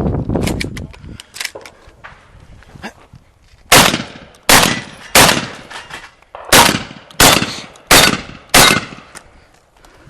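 Shotgun fired seven times in quick succession, about two-thirds of a second apart, with a short pause after the third shot. A low rumbling noise and a few faint clicks come before the first shot.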